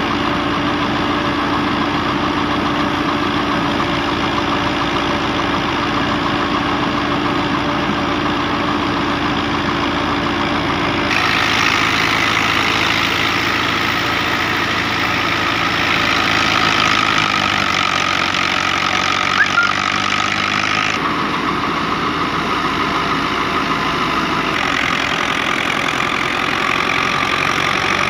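Dabang 85 tractor engine running steadily while it drives a wheat thresher, the thresher's drum and blower adding a continuous machine whir and the rush of blown straw. The rushing hiss grows stronger through the middle stretch, then eases back.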